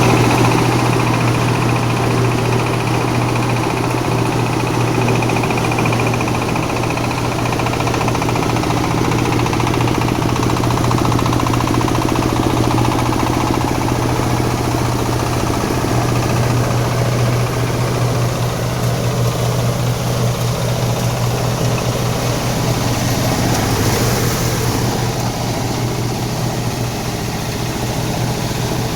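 Veneer and plywood waste grinding machine running steadily with a loud, even mechanical hum, easing off slightly near the end.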